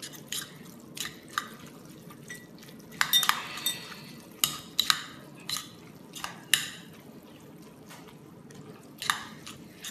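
A spoon stirring seasoned, drained instant noodles in a bowl: irregular clinks and scrapes against the bowl, with a few longer scraping strokes.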